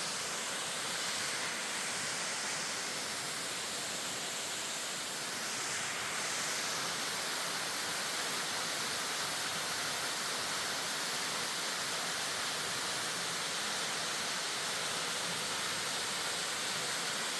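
Copper Falls waterfall rushing steadily: an even, unbroken hiss of falling water, mostly high-pitched with little bass.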